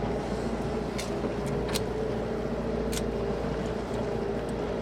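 Charter boat's motor running steadily at trolling speed, an even hum with a few short sharp clicks over it.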